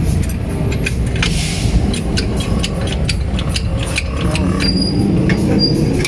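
Irregular metallic clicks and clinks of a socket wrench and hand tools working on mounting bolts, over a steady low rumble.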